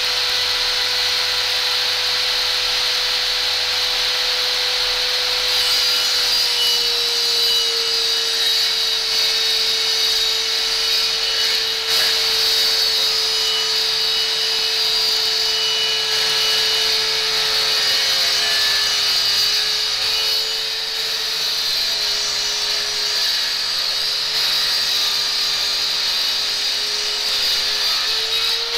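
Small bench-mounted power saw running steadily. Its motor pitch sags a little as wood is pushed through the blade, about a third of the way in and again later, and picks up again near the end.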